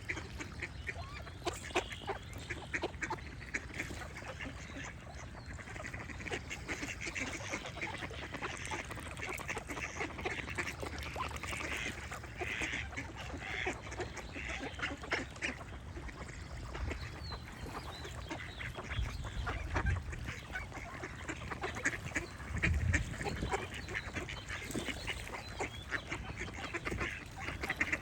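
Ducks quacking over and over in quick, dense runs, with birds singing faintly behind them. Two brief low rumbles come in the second half.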